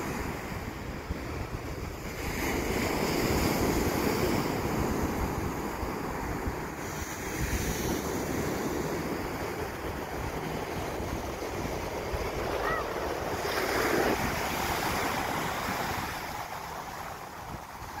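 Ocean surf washing onto a sandy beach, with wind rumbling on the microphone. The wash swells louder about two seconds in and again around fourteen seconds.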